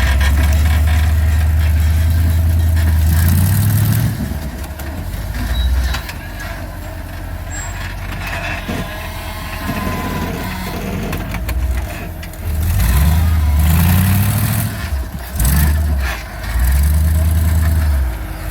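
Off-road vehicle's engine under load while crawling an obstacle: a loud, steady low note for about four seconds, then quieter running, then revved in short rising and falling bursts near the end as the driver bumps it forward.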